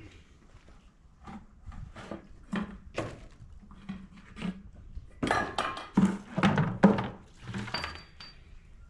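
A series of knocks and clanks about once or twice a second, loudest and closest together from about five to seven seconds in: hand work on metal parts of a forklift in a shop.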